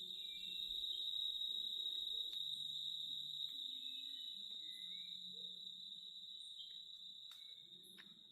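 Cicadas droning in one steady, high-pitched whine that swells in the first second or so and slowly fades toward the end, with a few faint short chirps and a couple of soft clicks.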